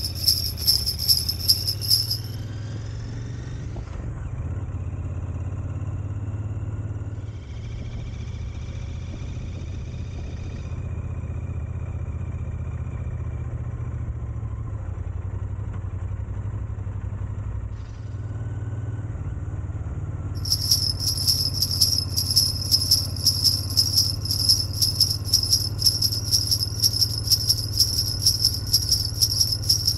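Sleigh bells jingling in a quick, steady rhythm, stopping about two seconds in and starting again about twenty seconds in, over a steady low hum.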